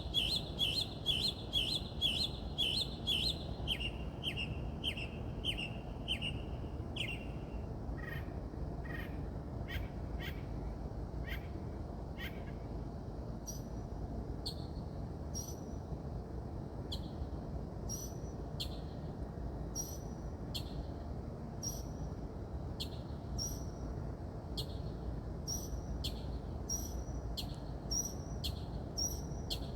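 A songbird singing a long series of short repeated notes, about two to three a second. It changes its phrase a couple of times: clear mid-pitched notes, then lower downslurred ones, then high sharp notes for the rest.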